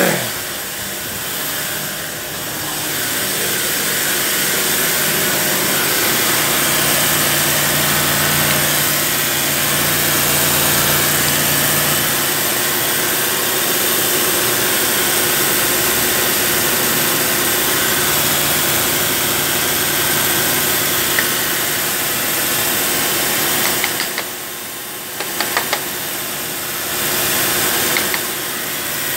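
Nissan Sunny's engine idling steadily, heard close up in the open engine bay, with a few light clicks near the end.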